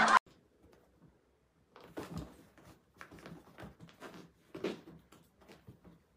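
A brief tail of music cuts off at the very start. After about a second and a half of quiet, faint, irregular scuffles and soft knocks come from a calico cat and a white kitten play-fighting, their paws swatting and shuffling on a fabric-covered ledge.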